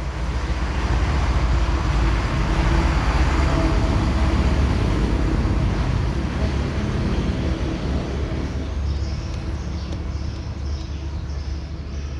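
Road traffic noise: a low rumble that builds over the first couple of seconds, then slowly eases off.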